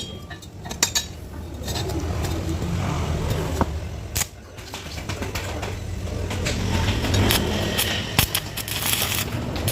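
Metal clinking and scraping, with scattered sharp clicks over a low steady hum: steel pieces and tools being handled.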